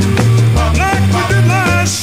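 Background music with a bass line stepping between notes.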